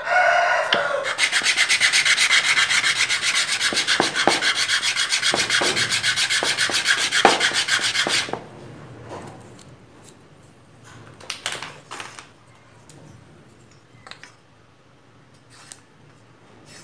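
A small wooden piece rubbed by hand on a sandpaper-faced wooden sanding block, in rapid, even back-and-forth strokes that stop about eight seconds in. After that come only a few light knocks of wood pieces being handled.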